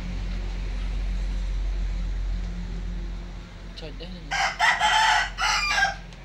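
A rooster crows once, loud and pitched, about four seconds in, lasting under two seconds. A steady low hum runs underneath.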